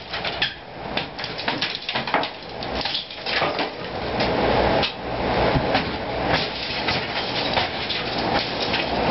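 Large drum fan with a filter sleeve over its outlet running steadily with a low hum and a rush of air. Many irregular knocks and rattles run through it.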